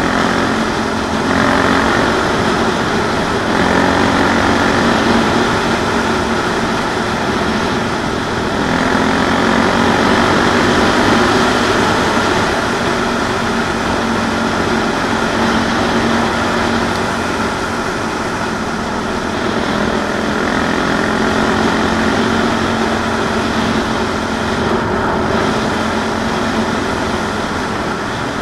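CCM 644 R30 supermoto's single-cylinder four-stroke engine pulling at road speed. Its note rises and eases as the throttle changes, over a steady rush of wind and tyre noise.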